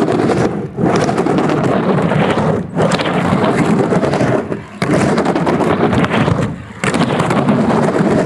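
Skateboard wheels rolling on a plywood halfpipe: a loud, steady rumble that breaks off briefly about every two seconds as the board turns on each wall.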